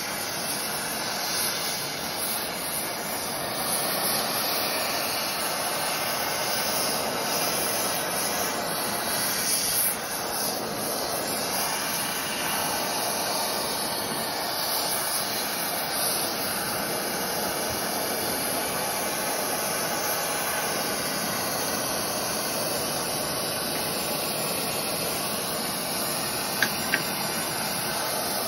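Oxy-fuel torch burning with a steady hiss as it heats a steel locomotive tire ring, expanding it for a shrink fit onto its driver center. Two short, sharp clicks near the end.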